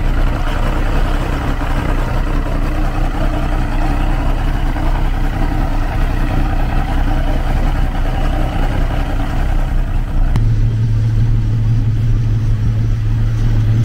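Mercury 250 EFI V6 two-stroke outboard running at idle speed, pushing the boat slowly along. About ten seconds in, the sound changes abruptly to a steadier, deeper engine hum.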